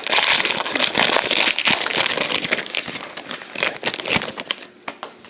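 Foil trading-card pack wrapper crinkling and crackling as it is opened and the cards are pulled out. It is loudest for the first three seconds, then dies away to a few faint rustles.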